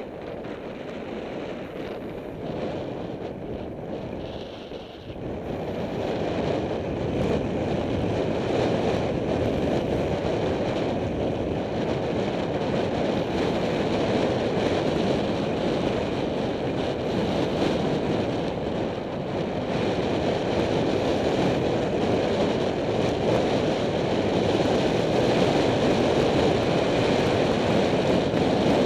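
Wind rushing over a helmet-mounted camera's microphone during a fast bicycle descent, a steady roar that grows louder about five seconds in as speed picks up.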